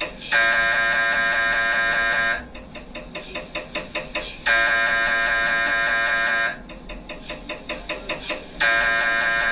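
MRI scanner running a scan sequence: a loud, steady buzzing tone lasting about two seconds comes three times. In between, quieter rapid knocking goes at about five a second.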